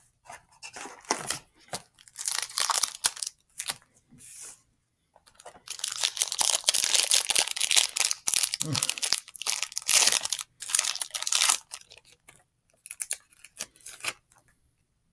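Foil booster-pack wrapper being torn open and crinkled by hand, in irregular ripping and crackling bursts. The longest continuous stretch runs from about five to eleven seconds in.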